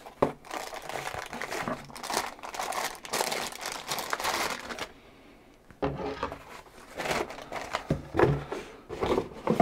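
Plastic bag around a computer power supply crinkling in irregular bursts as it is handled and lifted out of its box, with a short lull about five seconds in. After the lull, foam packing and the cardboard box rustle and knock a few times.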